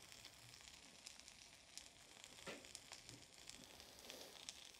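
Faint sizzling of chicken cooking on a hot ridged grill pan, with a few light crackles and ticks.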